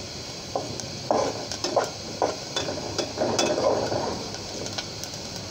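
Steel spatula stirring and scraping sliced onions frying in oil in an aluminium pot, with irregular clinks and scrapes of metal on the pot over a light sizzle; the onions are browning.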